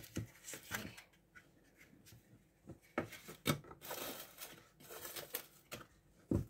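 Small plastic pots of African violet offsets being handled and set into a clear plastic container: scattered light plastic clicks and knocks with rustling, and a sharper knock near the end.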